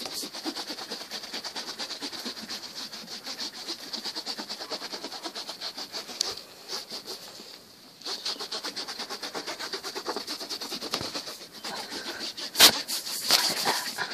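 Kitchen roll scrubbing back and forth on a plastic-coated mesh rat-cage ladder: quick, rhythmic rubbing strokes that ease off briefly about halfway, with a sharp knock near the end.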